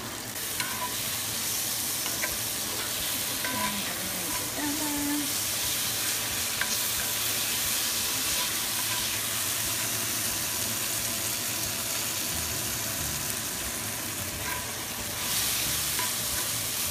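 Green beans, cherry tomatoes and sliced garlic sizzling in a hot cast-iron skillet, stirred with a wooden spoon that scrapes and taps the pan now and then. The sizzle grows louder near the end.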